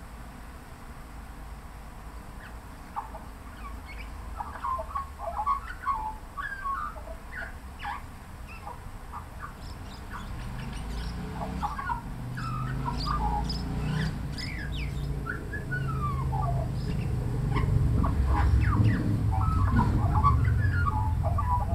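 Australian magpie singing, a varied run of short warbling phrases with quick gliding notes, starting a few seconds in. A low traffic rumble builds through the second half and becomes the loudest sound near the end.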